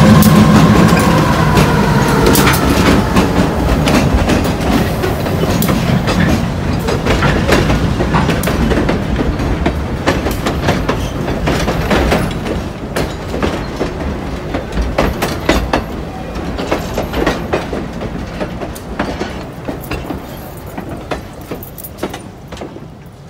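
A Reading & Northern diesel switcher locomotive rolls past close by. Its engine drone fades over the first few seconds. Then freight cars roll by, with a rumble and the clicking and clanking of steel wheels over the rail joints, growing fainter toward the end as the train moves away.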